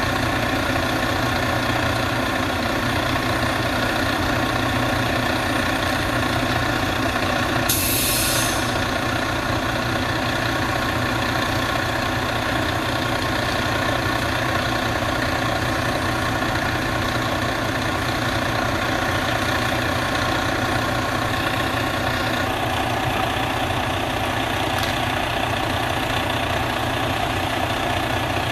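Heavy truck engine idling steadily, with a brief hiss about eight seconds in.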